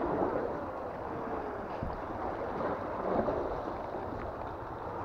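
Sea water surging and washing against a rocky shore, with wind on the action-camera microphone, a steady rushing noise.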